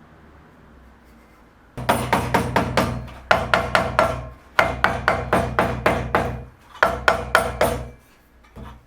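Rapid hammer taps in four quick runs, about four or five strikes a second, each strike ringing briefly.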